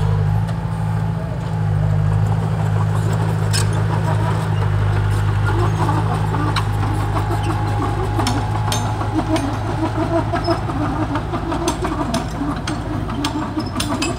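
Diesel engine of a small Komatsu crawler dozer running steadily under load as it pushes soil. From about halfway through, clanks and scraping from the steel tracks and blade join in.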